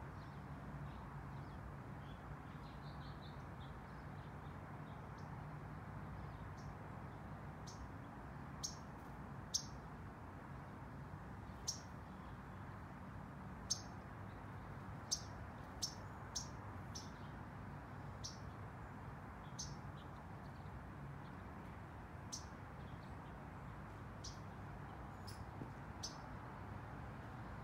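Backyard birds chirping: short, high single chirps at irregular intervals, more than a dozen and mostly after the first third, over a faint steady low hum.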